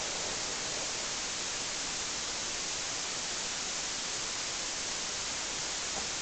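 Steady, even hiss of recording noise, strongest in the high treble, with no other sound standing out.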